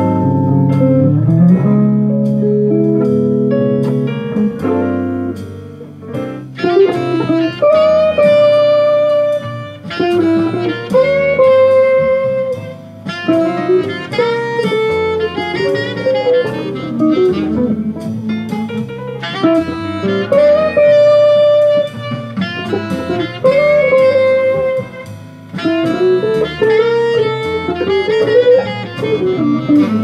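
Gibson Les Paul electric guitar playing jazz: a few seconds of chords, then from about six seconds in a quick single-note melody line.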